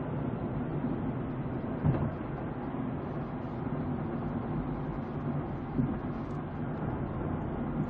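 Steady engine and road noise of a moving car, heard from inside the cabin through a dashcam's microphone, with a short thump about two seconds in.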